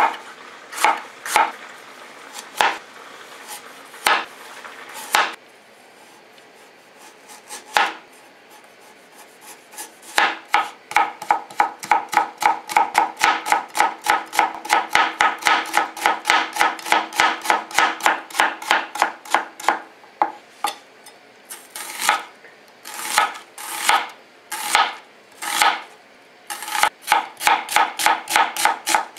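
Kitchen knife chopping vegetables on a plastic cutting board. There are a few scattered strokes, then a pause of several seconds, then a long run of quick, even strokes at about four a second, and then short bursts of strokes.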